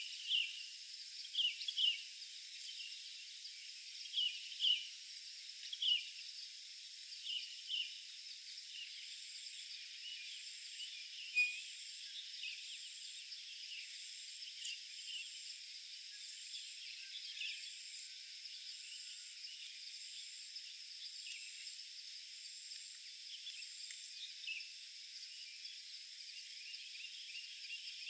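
Forest insect chorus: a steady high drone, with a very high pulsed call repeating about every second and a half through the middle. Short sharp chirps, mostly in pairs, stand out in the first eight seconds.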